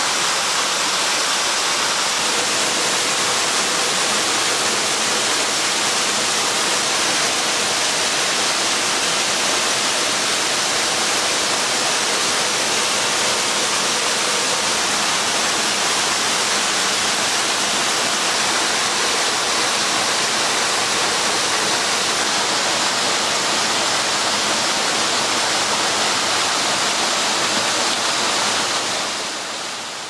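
Steady rush of a waterfall and of water cascading over rocks in a mountain stream: a dense, even hiss that fades out near the end.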